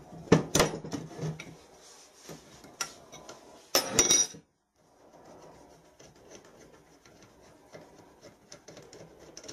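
Metal hand tools and turbocharger parts clinking and scraping against each other and the steel bench as an oil-feed fitting is unbolted with a spanner. A few sharp clinks near the start and a louder clatter about four seconds in, then faint scraping with small ticks.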